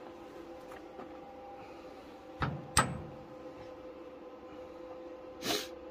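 Two sharp clicks about two and a half seconds in, then a short scrape near the end, as a metal chain and its parts are handled and fitted by hand. A faint steady hum runs underneath.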